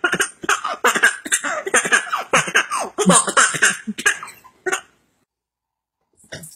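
A baby laughing in short, cough-like bursts, cut off abruptly about five seconds in.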